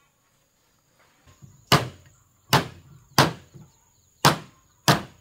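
Five sharp blows, like hammering or chopping, spaced about half a second to a second apart, starting about a second and a half in.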